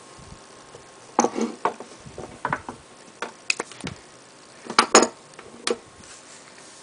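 Irregular clicks and clattering knocks as spark plug wires, their boots and a spark tester are pulled off, handled and set down on an ignition-coil test bench. The loudest knocks come a little past the middle.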